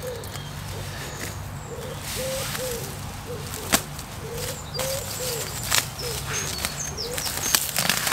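A pigeon cooing in a long run of short, low, rounded notes, a few a second, with small birds chirping high above it in the second half. A few sharp taps cut in, the loudest about four seconds in.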